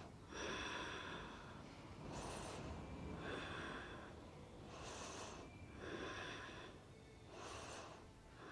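A woman's slow, deep breathing, faint: about four unhurried breath cycles, each a soft hiss in and a hiss out.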